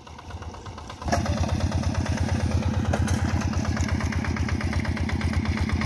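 Single-cylinder diesel engine of a two-wheel hand tractor running steadily with a fast, even pulse as it pulls a comb harrow through flooded paddy mud. It comes in abruptly about a second in, after a quieter start.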